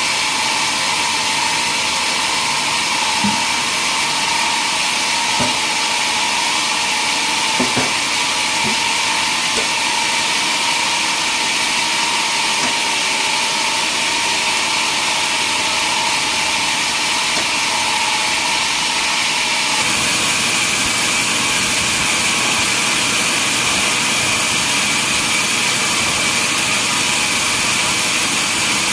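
Sawmill saw running steadily with a high, continuous whine and a few light knocks. The sound shifts abruptly about two-thirds of the way through.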